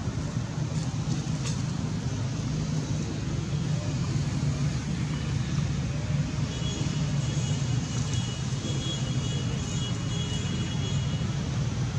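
Steady low background rumble, with a faint high steady whine from about six seconds in until near the end.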